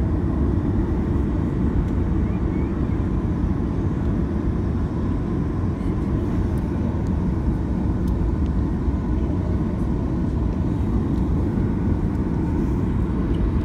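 Steady low rumble of a jet airliner's engines and airframe heard inside the passenger cabin as the plane taxis, with the level holding even just before the takeoff roll.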